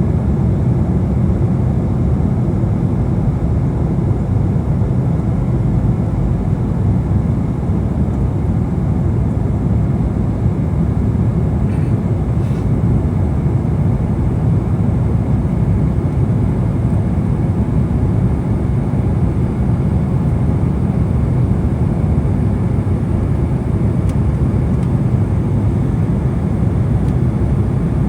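Steady low rumble of jet engines and airflow heard inside the cabin of an Embraer E175 airliner, powered by GE CF34-8E turbofans.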